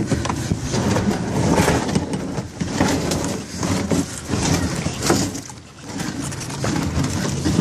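Water splashing and sloshing around a plastic kayak moving out onto a flowing river, with wind rumble and irregular knocks of handling on the phone's microphone.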